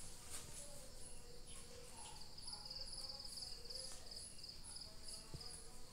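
Faint cricket chirping: a high chirp repeating about twice a second, joined by a lower insect trill for about three seconds from around two seconds in.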